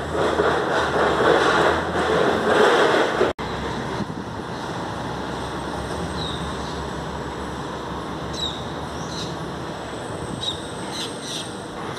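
Scania truck's diesel engine running as the tractor-trailer pulls slowly past. Louder for the first three seconds, then, after a brief cut, a steadier, quieter rumble.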